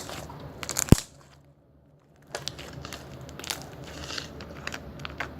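Hands squeezing and kneading a crunchy slime, making crackling and popping clicks, with a loud pop about a second in and a short pause before the crackling resumes.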